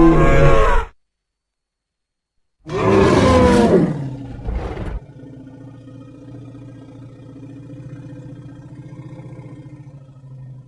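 Woolly mammoth creature roars: a short harsh roar, then a longer one that drops about five seconds in into a long, low, steady rumbling growl.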